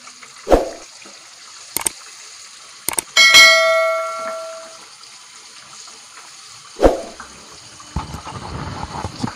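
A wooden spoon knocks and scrapes in a pan of thick curry sauce as the chicken korma is stirred and fried down. Two sharp clicks and then a ringing bell chime from a subscribe-button animation sound about three seconds in; the chime is the loudest sound.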